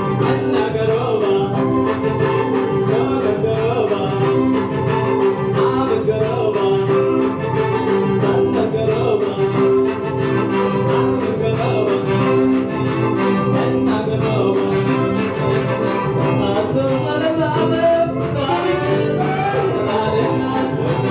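A man singing into a microphone over loud amplified band music with a steady, even beat and held notes underneath.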